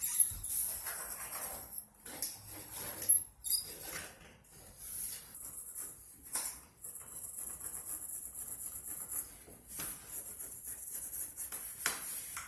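Pencil scratching across the face of a large porcelain tile as a curve is scribed onto it, with a run of irregular short scrapes and a few sharp clicks and knocks from handling the tile and tape measure.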